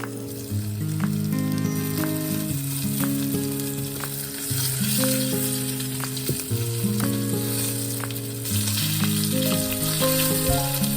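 Food sizzling as it fries in a pan, the sizzle growing louder about four and a half seconds in and again past eight seconds, with a few light clicks. Soft background music with slow, stepping notes plays underneath.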